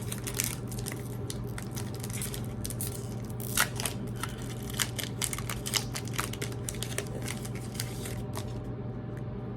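Foil wrapper of a Pokémon booster pack being torn open and handled, a dense run of short crinkles and crackles with a sharper one about three and a half seconds in, over a steady low hum.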